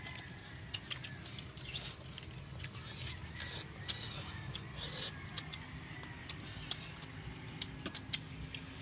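Faint, irregular clicks and crackles of balut eggshells being cracked and peeled by hand, over a steady low background hum.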